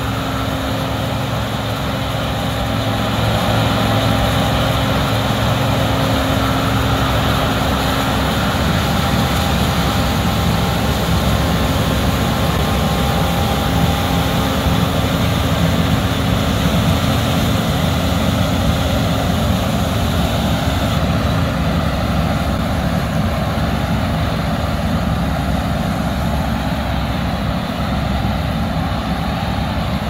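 A steady machine hum with a few held tones, getting louder about three seconds in.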